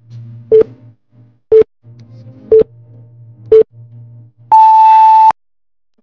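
Electronic countdown-timer beeps: four short beeps a second apart, then one longer, higher beep marking the end of the timed count, over soft background music.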